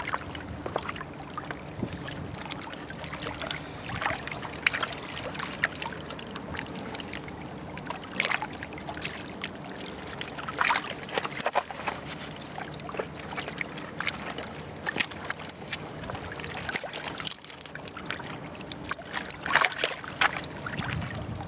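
River water lapping and trickling against the stones of a riverbank, with scattered rustles and clicks throughout.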